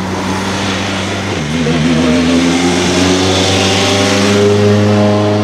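Citroën DS3 WRC rally car's turbocharged four-cylinder engine running at low revs, then rising steadily in pitch from about a second and a half in as it pulls away, holding a higher note near the end.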